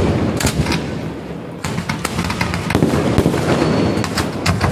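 Aerial fireworks bursting overhead: a loud, dense run of bangs and crackles, with a brief lull about a second and a half in before the barrage picks up again.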